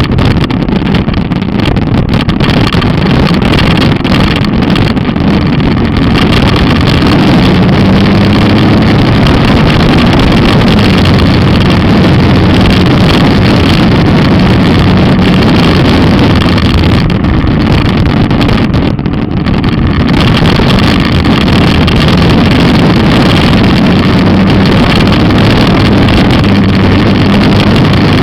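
Motomel Skua 250's single-cylinder engine running steadily as the motorcycle rides along, with wind buffeting the microphone. The engine note eases off briefly about two-thirds of the way in.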